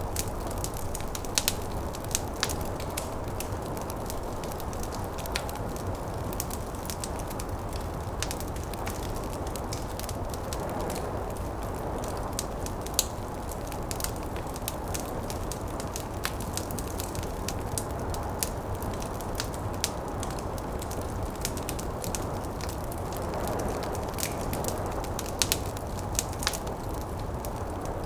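Wood fire crackling and popping in a fireplace, with irregular sharp pops over a steady low rush of wind and blowing snow that swells now and then.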